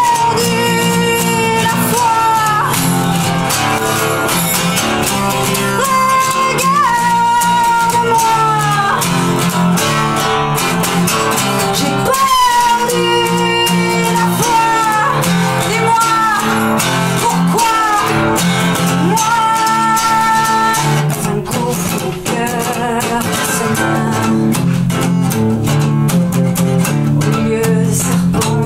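A woman singing a slow dark-folk song in French in drawn-out phrases, over a steadily played acoustic guitar. The guitar carries on alone between the vocal lines.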